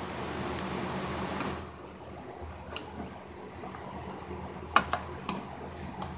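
Plastic retainer clips on a car's upper radiator cover being pried with a pick tool: a few short, sharp plastic clicks, the loudest about five seconds in. Under them is a steady hiss that stops after about a second and a half.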